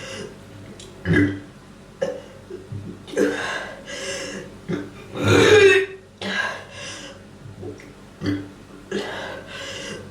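A person gagging and belching over and over: dry heaves that bring up only burps. About ten short bursts, the longest and loudest belch coming about five seconds in.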